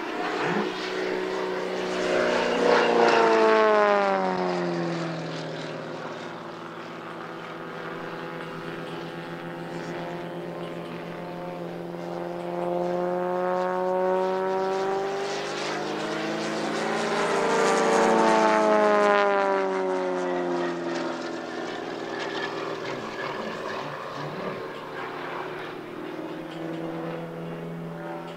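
Propeller-driven Extra aerobatic planes, a full-size Extra 300S and a 40% scale radio-controlled Extra 330 flying as a pair, making two fly-bys. Each time the engine and propeller note swells, then drops in pitch as they go past, about three seconds in and again around eighteen seconds in.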